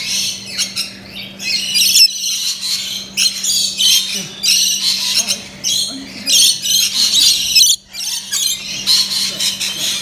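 Rainbow lorikeets screeching: harsh, high-pitched squawks in quick bursts, one after another with short gaps between them.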